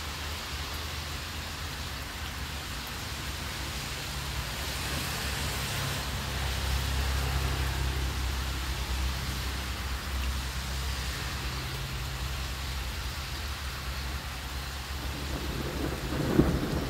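Steady light rain falling on pavement and lawn, with a long low rolling rumble of thunder that swells in the middle and fades, and a louder, sharper burst near the end.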